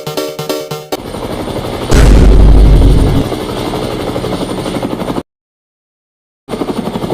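Fast chopping whir like spinning blades beating the air, with a very loud, deep blast about two seconds in. It cuts off abruptly about five seconds in, and a shorter burst of the same chopping comes back near the end. Electronic music plays briefly at the start.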